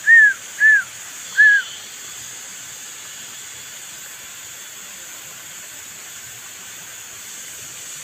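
Three short, clear whistled notes, each rising then falling, within the first second and a half, over a steady high hiss.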